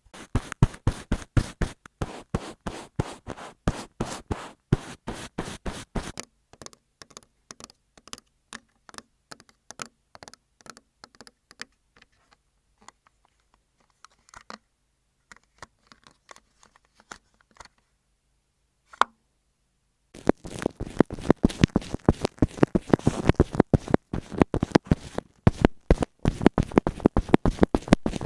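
A pen scratching across paper in quick, irregular handwriting strokes. It is busy for the first six seconds, turns sparse and faint through the middle with one sharp tap, then picks up again thickly for the last eight seconds.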